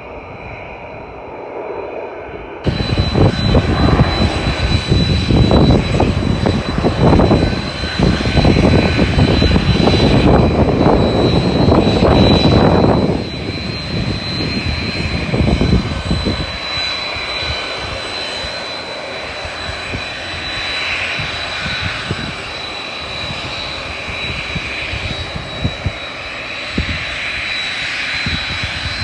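Airliner engines at close range: a loud, rough roar with a steady high whine comes in suddenly about three seconds in, drops off sharply about halfway through, then carries on as a lower, steadier engine sound.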